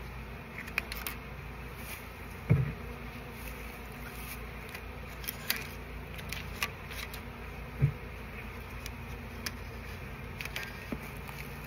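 Honey bee colony buzzing steadily, with a few light clicks and knocks and two louder thumps, the first about two and a half seconds in and the second near eight seconds.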